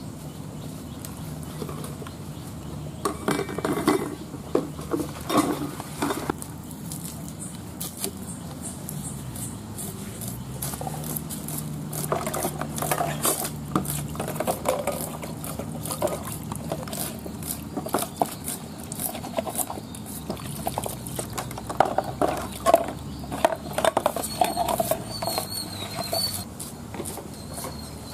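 Small red onions being handled and peeled by hand with a large knife: irregular scraping, tapping and rustling of blade, fingers and papery onion skin, with wet splashing and sloshing in a bowl of water a few seconds in. A faint steady low hum runs underneath.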